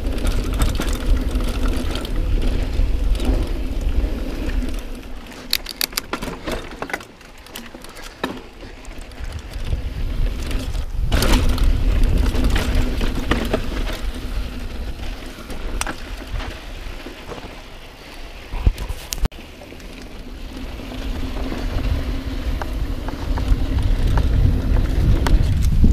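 Mountain bike riding over a dirt trail: wind rush on the camera microphone and tyre and drivetrain noise that swells and fades with speed. Sharp rattling clicks come about six seconds in, and single knocks come about eleven and nineteen seconds in, as the bike goes over rough ground.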